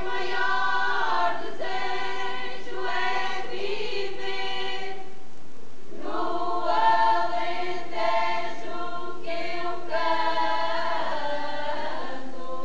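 Women's choir singing unaccompanied in several parts, in the slow, held style of Alentejo cante. One sung phrase stops about five seconds in, and the next begins a second later.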